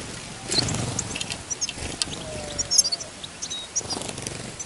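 Small songbirds chirping, with a flurry of wing flaps about half a second in as birds take off around a net trap, and smaller flaps later.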